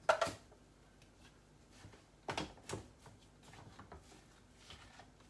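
Light clicks and knocks of hands handling a food processor's plastic bowl and lid while its motor is off: one sharp click just after the start, then a few more about two and a half seconds in.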